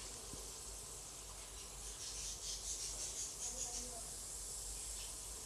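Sliced onions and green chillies frying in oil in a cooking pot: a faint, steady sizzle that turns to a light crackling from about two seconds in.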